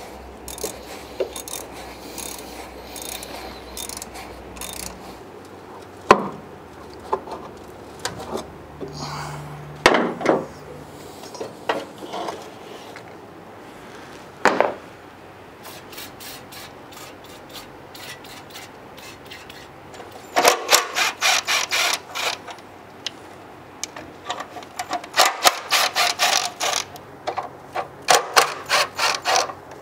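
Hand tools at work on an old car: a few scattered knocks, then, in the second half, two stretches of quick repeated scraping and clicking strokes.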